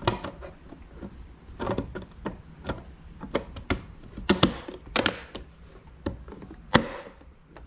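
Carbon fiber mirror cap on a BMW F30 side mirror knocking and clicking against the mirror housing as it is lined up and pressed into place, a dozen or so irregular taps with a sharper click about seven seconds in.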